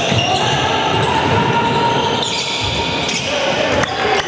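Echoing din of a game in play in a large hall: mixed voices throughout, with a few sharp knocks in the last second or so.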